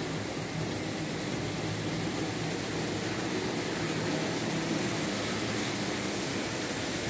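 Märklin H0 model trains running on the layout: a steady whirr of their small electric motors and wheels rolling on the track.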